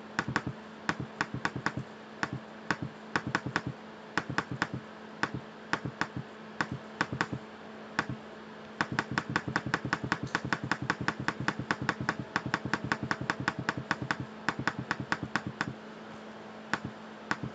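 Computer mouse clicking in irregular runs while a document is scrolled, sparse at first, then fast and dense, several clicks a second, from about halfway through, over a faint steady hum.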